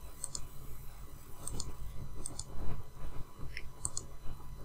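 Computer mouse clicks: four short click pairs, each a button press and release, spread over a few seconds, over a low steady hum.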